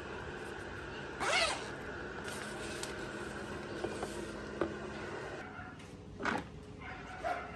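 A small pet animal crying: one long cry that rises then falls in pitch about a second in, and a shorter cry about six seconds in, over a steady background hum.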